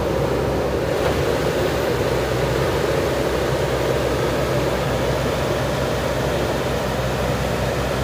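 Diesel engines of JCB backhoe loaders running steadily under work, a continuous low drone with a noisy rush over it.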